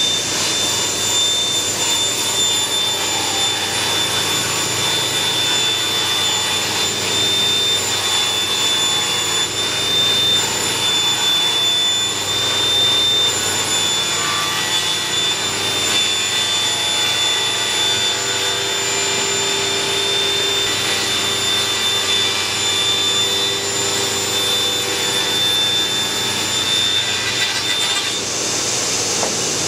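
Table saw running with a steady high whine while ripping a thin strip of wood off a board set against a thin-rip jig. The motor starts winding down at the very end.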